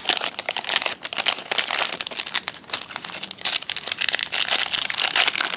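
Foil wrapper of a Panini Rookies and Stars football card pack crinkling in the hands as it is crumpled and pulled open, a dense, irregular run of crackles.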